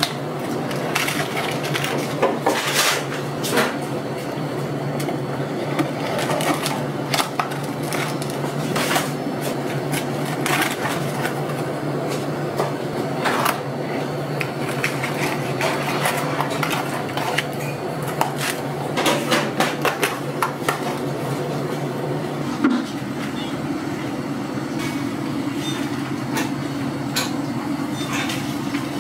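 Steady background hum of a food shop with scattered clicks and light clatter from food and paper boxes being handled; the background changes about 23 seconds in.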